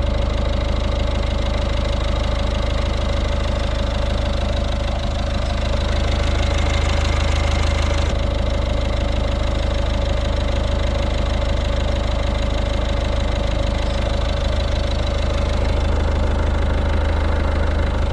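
Citroën C3 Picasso's 1.6 HDi four-cylinder turbodiesel idling steadily, running after a timing belt replacement.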